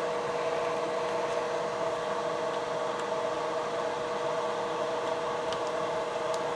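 Bench fume extractor's fan running with a steady hum that holds two tones over a soft airy noise, with a few faint clicks near the middle and end.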